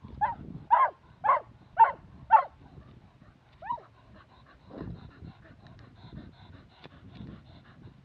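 A dog yipping in a quick series, about two short yips a second, then one more yelp a little later. Softer low thumps and rustling follow.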